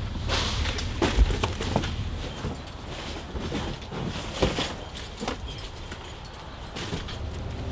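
Cardboard boxes being handled and carried: rustling and scraping, with a few knocks as they bump. The loudest knock comes about a second in.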